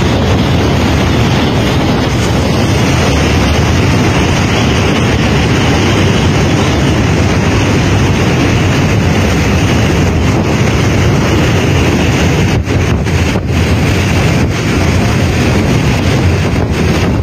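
Typhoon-force wind driving sheets of rain, loud and steady, with heavy wind noise buffeting the phone microphone.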